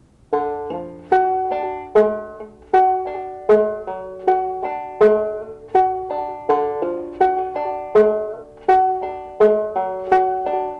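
Five-string banjo in open D tuning, picked slowly in two-finger style: a steady run of plucked notes with a sharp accent on each beat, the fifth-string drone ringing on the third of the chord.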